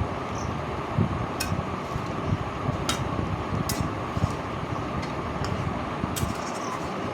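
Chicken pieces frying in spiced masala in a kadai, under a steady low rushing noise, with a few sharp ticks scattered through it.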